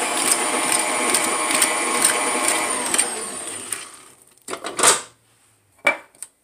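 Electric stand mixer running with a wire whisk beating a thick cream cheese and peanut butter mixture, a regular click about twice a second over a high steady whine. The motor winds down and stops about three to four seconds in, then comes a loud sharp clack as the bowl is lowered on its lift lever, followed by a lighter click.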